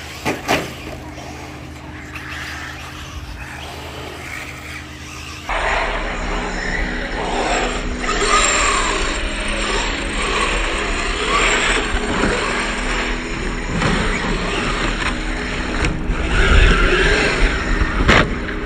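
Radio-controlled cars running on a track, their motors and tyres making a continuous whirring noise that swells and fades as they pass. It gets suddenly louder about five seconds in.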